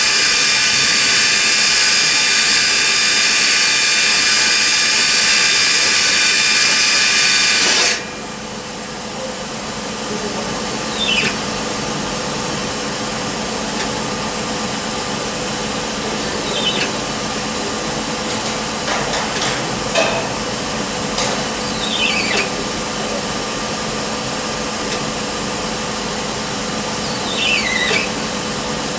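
Nomura DS 10EX3 automatic lathe cutting: a loud, steady machine whine with hiss, holding several steady pitches, cuts off suddenly about 8 seconds in. The machine then runs on more quietly, with a short falling squeal every few seconds.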